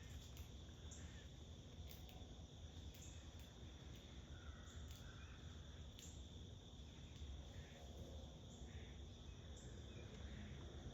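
Faint outdoor ambience: a steady high insect trill, like crickets, with a few soft short calls faintly in the distance.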